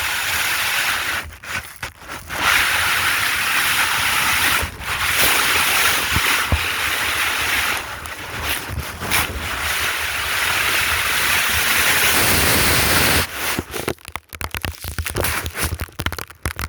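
Snow scraping and rushing over a phone's microphone as the phone is dragged through deep snow: long hissing sweeps broken by short pauses, becoming choppy and stop-start near the end.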